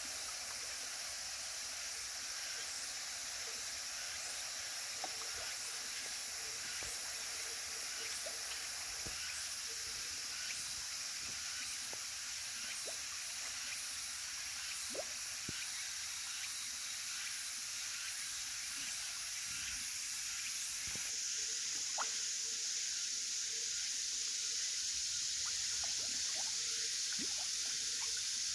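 Pond-side water ambience: a steady high hiss with trickling water and scattered small drips and plops. The hiss grows louder about three-quarters of the way through.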